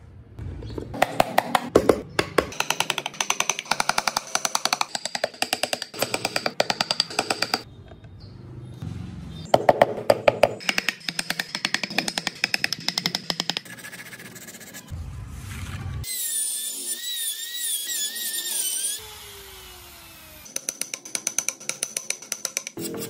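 Carving chisel and gouge tapped rapidly into hardwood, in long runs of sharp, evenly spaced taps with a slight ring, broken by a short pause. A wavering, warbling whine follows for a few seconds past the middle.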